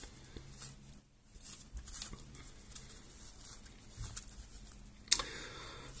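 Faint handling noises: light rustling and small taps of things being handled on a work surface, with one sharp click about five seconds in.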